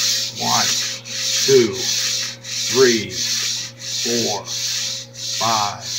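Back-to-back Micro-Trains model train trucks on metal wheels rolling back and forth along a bowed curve of model track: a rushing rolling noise of wheels on rail that swells and fades with each swing, about every two-thirds of a second, with short sliding squeaks between the swells.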